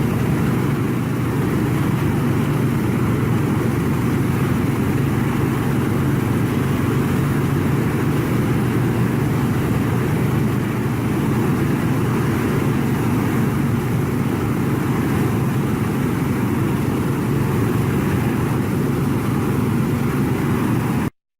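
Large machine engine running steadily, a loud continuous drone that does not rise or fall, cutting off abruptly near the end.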